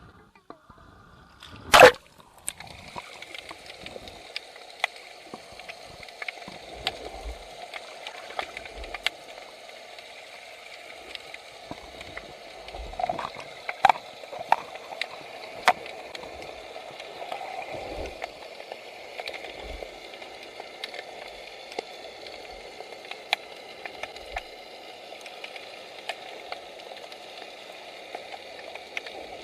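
Sound picked up by a camera under seawater: one loud knock or splash about two seconds in, then a steady watery hiss full of sharp scattered clicks and occasional low knocks.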